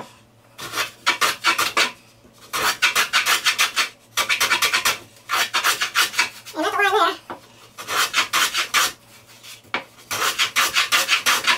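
Veritas block plane cutting a chamfer along the edge of a pine board: repeated bursts of quick shaving strokes with short pauses between them.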